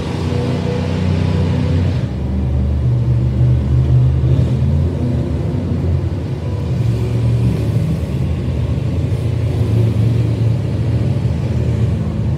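Monster truck engines running hard as two trucks race around the track, a deep engine sound swelling and easing every few seconds, muffled by the window glass it is heard through.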